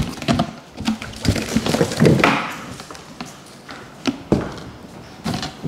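Large cardboard shipping carton being handled and lifted: irregular knocks and thuds of the cardboard, with a longer scraping rustle about two seconds in.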